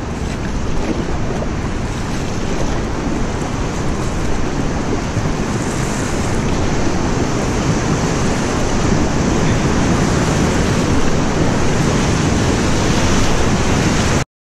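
Steady roar of rushing whitewater from a large river rapid, growing gradually louder as the canoe approaches it. It cuts off suddenly near the end.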